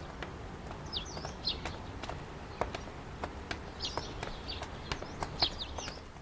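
Small birds chirping in short, quick high calls that come in little groups. Scattered light clicks and taps run underneath, over a steady low background rumble.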